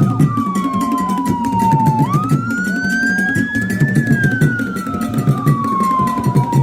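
Slow wailing siren whose pitch falls, swoops back up about two seconds in, climbs and falls again, over a music track with a steady drum beat.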